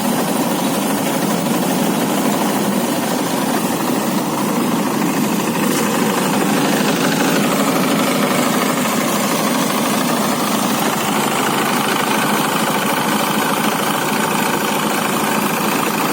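Engine-powered rice threshing machine running steadily with a fast, even engine pulse under a constant loud mechanical rush.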